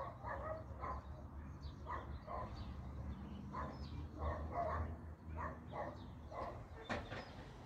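A dog barking repeatedly, about two barks a second, over a steady low engine rumble.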